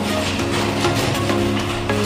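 Background music with steady held notes and chords.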